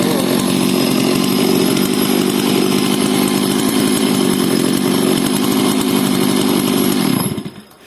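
Stihl MS 382 two-stroke chainsaw running at a steady, even speed, then cut off about seven seconds in and winding down.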